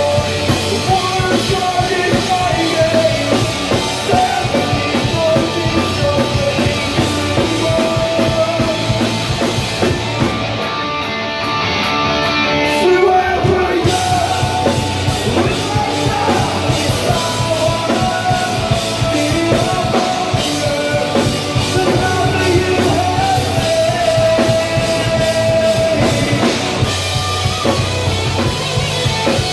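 Live punk rock band playing loud, with distorted electric guitars, bass guitar and drum kit under a vocalist singing into a microphone. About ten seconds in the band thins out briefly, losing its cymbals for about three seconds, then the full band comes back in.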